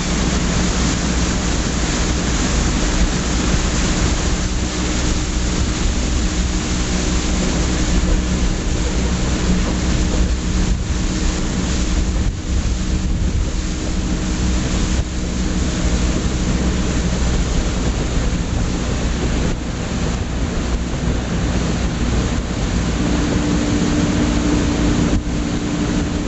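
Motorboat engine running steadily at speed while towing, with wind buffeting the microphone and water rushing in the wake.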